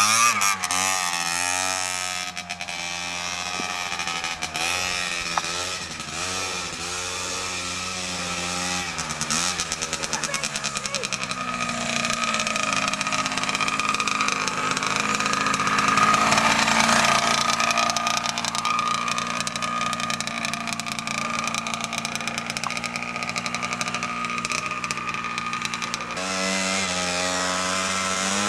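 Gas Gas TXT Boy youth trials motorcycle's two-stroke engine being ridden, its pitch rising and falling with the throttle for the first ten seconds or so. It then holds a steadier note until near the end, when the revving up and down returns.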